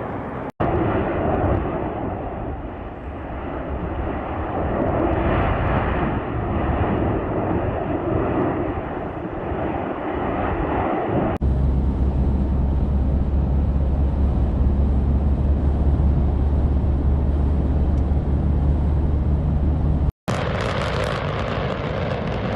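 Continuous deep roar of the Cumbre Vieja volcanic eruption, spliced from several clips with sudden cuts about half a second in, about eleven seconds in, and near the end; the middle stretch is a steady low rumble.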